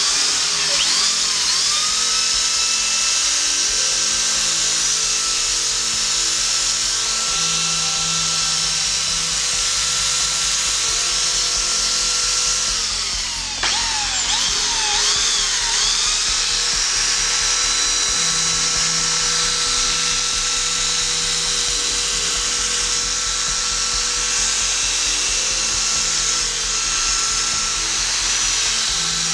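Electric emery grinder running with a steady high whine as it sands callused skin off bare heels; about halfway it slows and spins back up. Background music plays under it.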